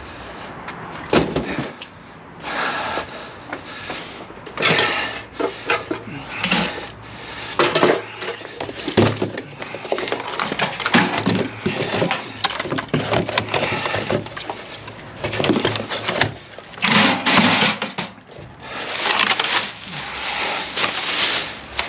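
Salvaged scrap and junk being handled and packed: irregular knocks, clatters and rustling, some louder bursts of scraping near the middle and end.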